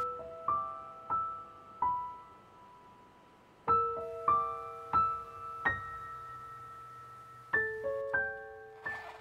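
Slow solo piano background music: single notes struck one by one and left to ring, in three short phrases of about four notes each with brief pauses between.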